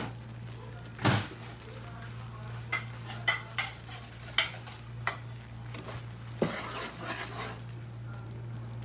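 Stirring and scraping a pan of roasting besan, the utensil knocking sharply against the pan several times, the loudest about a second in, over a steady low hum.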